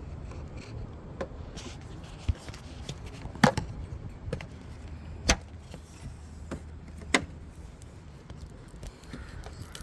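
Plastic roof trim covers on a Ford Escape being pried and popped out of their clips: three sharp snaps about two seconds apart, with a few fainter clicks, over a low steady rumble.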